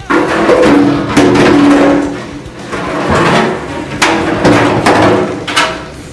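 Large empty plastic water jug being knocked, bitten and shoved across a tiled floor by a puppy: loud hollow bangs and scraping, with the jug's body ringing briefly after the harder knocks.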